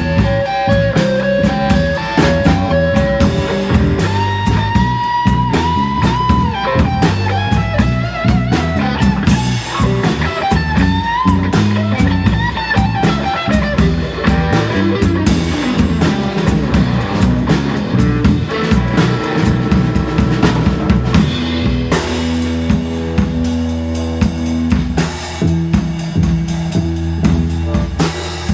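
Live blues band playing an instrumental break: a lead line with bent notes over guitar, bass and a drum kit. About two-thirds of the way in the lead drops away and the band plays on with held chords and steady drums.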